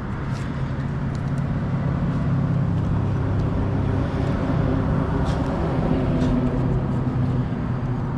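A motor vehicle engine running steadily with a low hum, getting a little louder about two seconds in.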